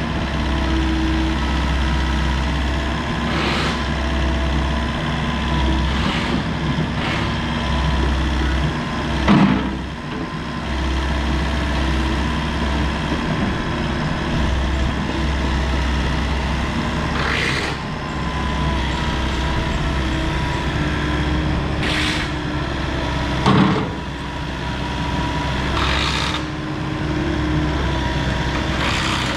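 Volvo ECR88D compact excavator's D2.6H diesel engine running while the machine is worked, its note shifting with load. Several sharp knocks come through, the loudest about nine seconds in and again near twenty-four seconds.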